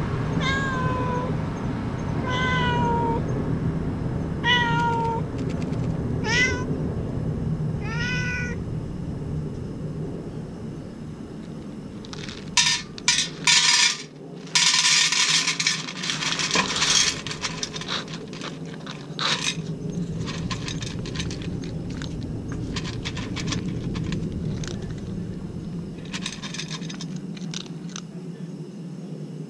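A yellow-and-white stray cat meows about six times in the first nine seconds, each call bending in pitch. Then dry kibble is poured from a paper cup into a stainless-steel divided tray, rattling loudly for a few seconds, followed by the cat crunching the dry food in scattered clicks. A steady low hum runs underneath.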